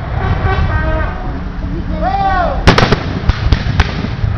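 Black-powder muzzle-loading guns firing: a ragged cluster of three loud shots close together about two and a half seconds in, then three fainter shots over the next second.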